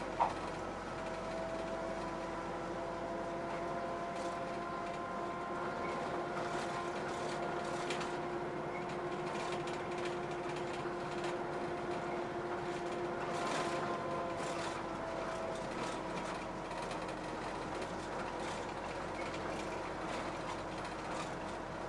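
City route bus driving, heard from inside the passenger cabin: a steady engine and drivetrain hum with a faint whine running through it. A single sharp click comes just after the start.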